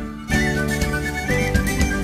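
Instrumental background music: a stepping melody line over sustained lower notes, briefly dropping out right at the start before carrying on.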